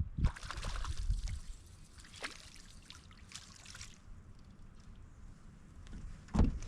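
Water splashing and trickling for about four seconds, then fading; a single low thump near the end.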